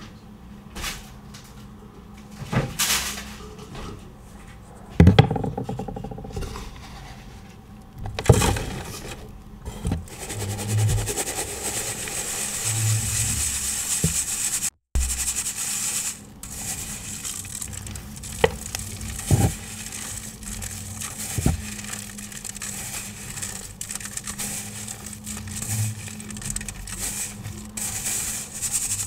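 Powdered iron oxide pigment and chalk being handled for ASMR: a few sharp knocks or crunches in the first eight seconds, then a steady fine, high hiss of powder being sifted, broken off for a moment about fifteen seconds in.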